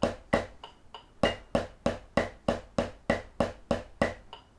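Drumsticks playing Swiss Army Triplets on a snare drum at quarter note = 65: an even run of sharp strokes, about three a second, the first of each triplet a flam with a soft grace note just ahead of the main stroke.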